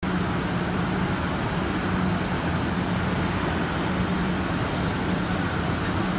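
Single-head CNC wood router running: steady machine noise with a constant low hum.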